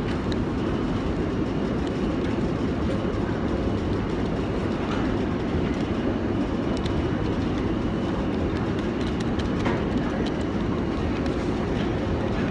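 Steady low rumble of a moving vehicle heard from inside the cabin, with a few faint ticks and rustles as a foil sachet is tipped and tapped over a plastic shaker bottle.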